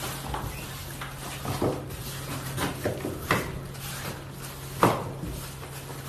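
Plastic-wrapped packets being handled and set down on the floor: rustling plastic and scattered short knocks, the sharpest about five seconds in, over a steady low hum.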